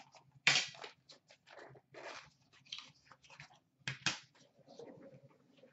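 Small cardboard card box being cut open and unpacked: a run of short, sharp scrapes and rustles from a blade on the sealed box, the cardboard lid and the cards inside, the loudest about half a second in and two more close together about four seconds in.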